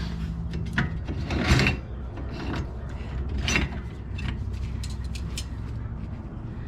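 Small metal clicks, scrapes and rubs of hand tools on the parking brake hardware (springs, adjuster, shoes) of a classic air-cooled Porsche 911 rear hub as it is taken apart: short, irregular knocks at an uneven pace.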